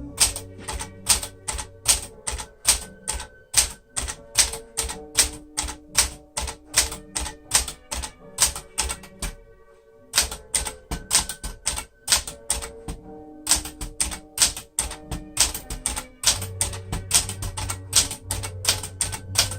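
Keys of a 1966 Sears Citation 12 manual typewriter, made by Smith-Corona, striking the platen in a steady run of about three strokes a second during a typing test. A short pause comes about ten seconds in.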